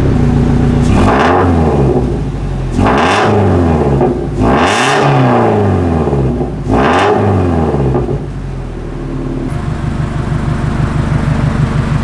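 Scion FR-S's 2.0-litre flat-four running through a DC Sports catback exhaust fitted with homemade silencer restrictors. It is blipped four times, each rev rising and falling back, then settles to idle for the last few seconds. The engine is not yet fully warmed up, and the owner suspects that water soaked the mufflers' fiberglass packing, which could be why it is so loud.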